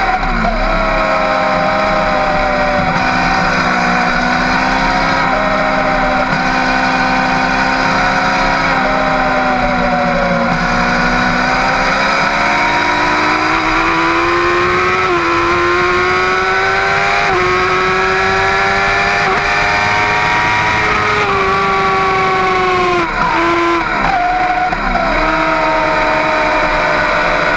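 Middleweight superbike engine running hard on track, its pitch climbing through each gear and dropping briefly at the gear changes, with one long climb in the middle. Near the end the revs fall and several quick dips and jumps in pitch follow, like downshifts, over a steady rush of wind.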